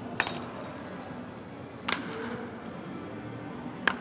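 Baseball bats hitting balls in batting practice: three sharp cracks about two seconds apart, over a murmur of background noise.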